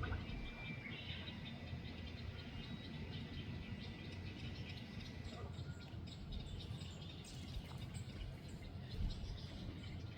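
Outdoor ambience: faint bird chirps over a steady low rumble of wind or handling noise, with a thin high insect-like tone.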